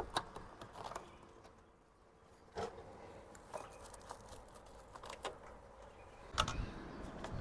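Faint handling noise: scattered clicks, taps and rustles as a mesh mosquito screen is fixed over a van door and clamped with clips, with a louder knock about six and a half seconds in.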